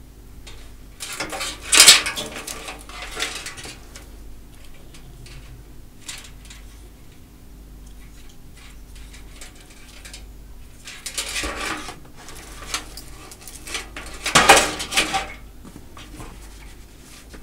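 Small hard parts clicking and rattling against a steel computer case as an RGB fan hub and its cables are handled and fitted to the back panel. The clicks come in three clusters, the loudest about two seconds in and again late on, over a faint steady hum.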